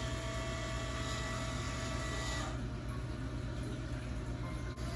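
ReefBot automated tester's motor-driven syringe pump whirring as it draws a water sample, stopping about halfway through, over a steady low hum.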